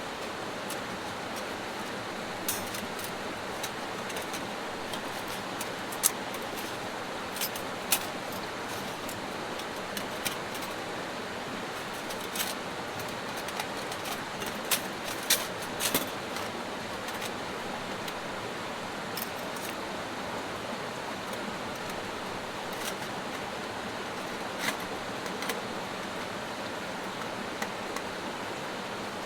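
A creek rushing steadily, with scattered sharp clinks and clicks of metal camp-stove gear being handled while a stick stove is unpacked and set up.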